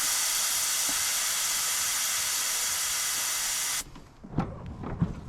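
Air hissing through the valve stem of a riding mower tyre's new inner tube, a steady hiss that cuts off sharply after nearly four seconds.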